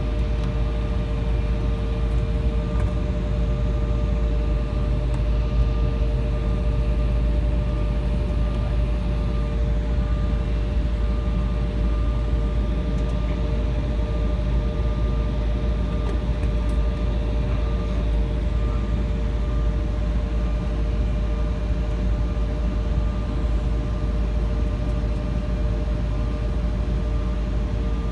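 Cabin drone inside an Embraer 175 regional jet: its two GE CF34 turbofan engines running steadily at low power, with a constant whine of a few steady tones over a deep rumble and hiss.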